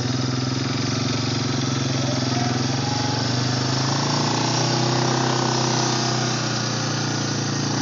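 Small ATV engine running steadily while being ridden, its pitch easing down slightly a few seconds in, then coming back up.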